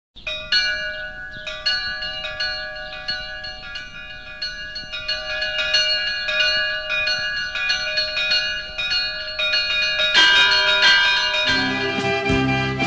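Church bells ringing, a rapid, uneven run of strikes whose tones overlap and linger. About ten seconds in the strikes crowd together, and just before the end lower music notes come in under them.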